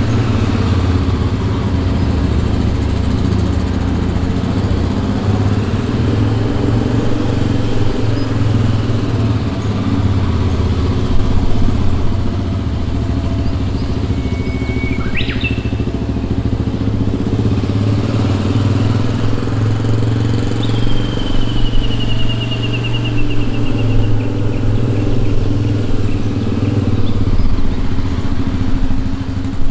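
Honda XR250 single-cylinder four-stroke dirt bike engine running as the bike is ridden around, with an uneven, blipping throttle in the second half. A bird chirps once and gives a short falling trill partway through.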